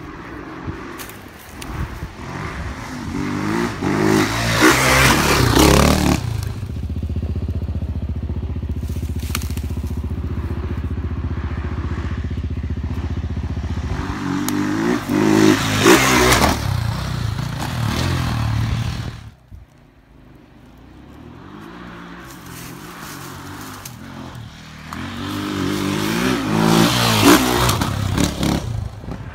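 Dirt bike engines revving as the bikes climb and pass on a dirt trail: three loud passes about ten seconds apart, with an engine running steadily between the first two. The sound drops away suddenly a little past the middle, then builds again.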